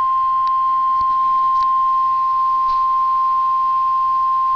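NOAA Weather Radio 1050 Hz warning alarm tone: a single loud, steady, high beep. It signals that a warning broadcast, here a severe thunderstorm warning, is about to follow.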